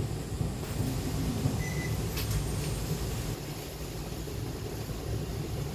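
Steady low rumble and hum inside an E2-class tram, barely moving, with a short faint high beep about two seconds in.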